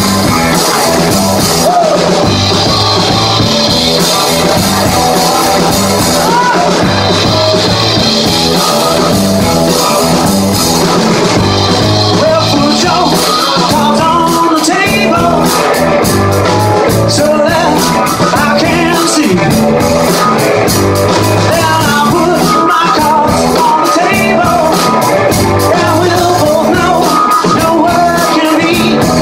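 A live rock band plays a song on electric guitar, bass guitar, drum kit and keyboard. A man's lead vocal comes in about halfway through over busier cymbals.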